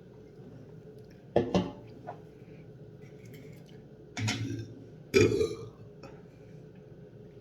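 A person burping three times: a short double burp about a second and a half in, a longer, lower one around four seconds, and the loudest just after five seconds.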